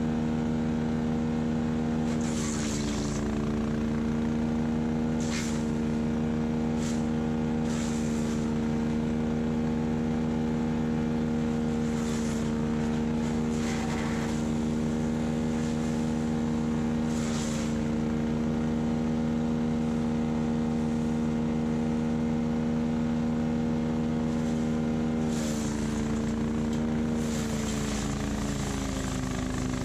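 Kubota LX2610 compact tractor's diesel engine running steadily, its pitch dipping briefly under load near the start and again near the end. Scattered short knocks and rattles sound over the engine.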